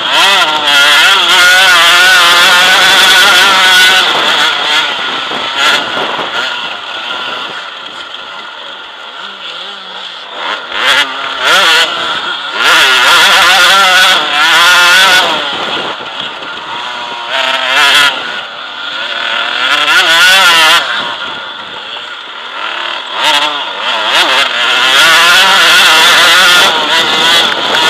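On-board sound of an enduro dirt bike's engine under hard riding, its pitch rising and falling over and over as the throttle opens and closes and gears change.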